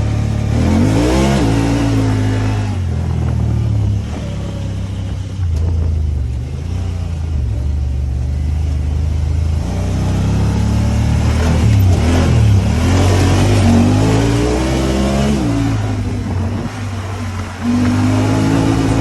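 Honda Talon 1000R side-by-side's parallel-twin engine revving under changing throttle, its pitch rising and falling several times over a steady running drone.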